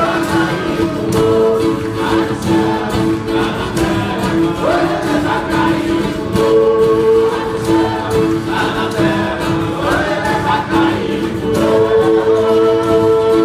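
Group of voices singing a Brazilian folk song together, holding long notes, over strummed acoustic guitars and violas and a drum.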